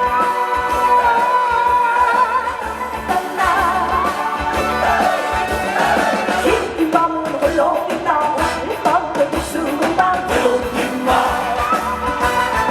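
Live trot song: a female singer's voice over loud backing music with a steady beat, heard through stage speakers.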